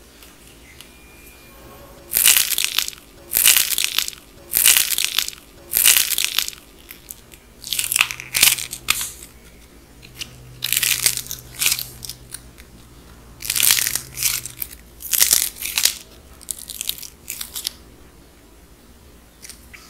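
Dried, gold-painted clay crust crunching and cracking as hands squeeze and break it apart. It comes in about ten crackly bursts, beginning about two seconds in, each from half a second to two seconds long.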